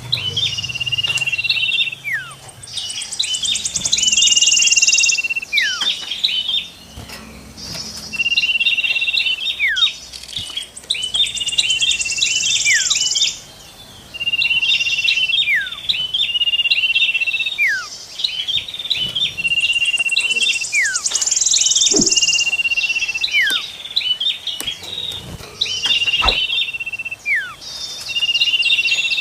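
Small songbirds calling in a pattern that repeats about every six seconds. Each round has quick high chirps, a steady trill, one whistle sliding downward, and a dry buzzing rattle higher up lasting about two seconds.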